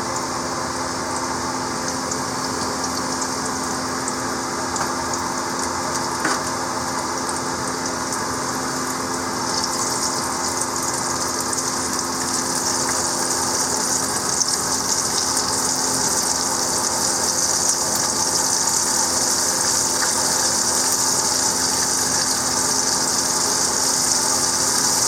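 Floured chicken frying in hot oil in a skillet, a steady sizzle that grows louder from about ten seconds in, over the steady hum of a stove vent fan.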